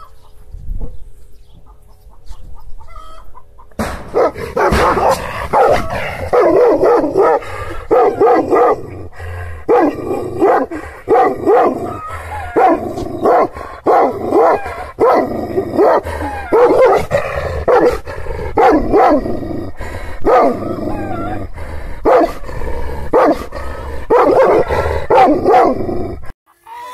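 An Aksaray Malaklı Turkish shepherd dog barking angrily in loud, repeated barks, about one a second. The barking starts about four seconds in and stops abruptly near the end.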